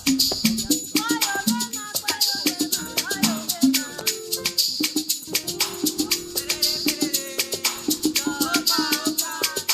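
Live band music: a shaker keeps a quick, steady beat over a repeating bass figure, with a gliding melody line above.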